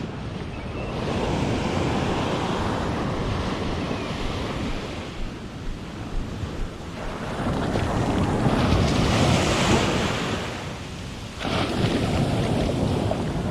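Ocean surf washing onto the beach, with wind buffeting the microphone. The wash swells and ebbs, loudest just past the middle, then comes back suddenly near the end.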